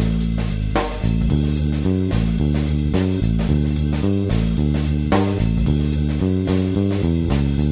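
Background music: a band track led by bass and guitar over a steady beat.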